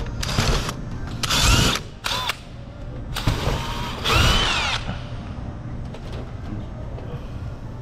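Power drill run in five short trigger bursts over about five seconds, its whine rising and falling in pitch with each burst, drilling into the wall to mount the sign bracket.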